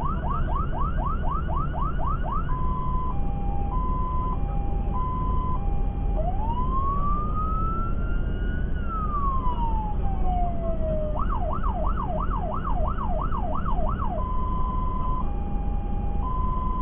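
Fire engine's electronic siren heard from inside the cab, switching between its tones: a fast yelp of about four sweeps a second, then a hi-lo two-tone, then one slow wail rising and falling. After that comes the fast yelp again and back to the two-tone, over the steady drone of the truck's engine and tyres.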